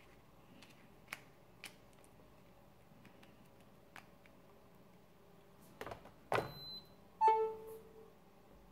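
A few faint handling clicks, then a smartphone set down on a wooden wireless charging board with a short clatter about six seconds in, followed about a second later by a short electronic chime as the phone starts charging wirelessly.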